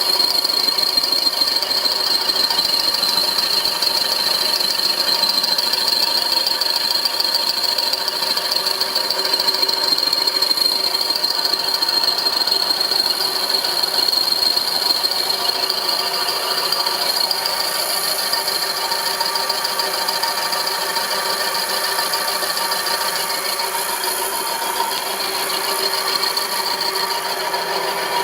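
Homemade milling machine running steadily, a machine whine with a fast, even rattle.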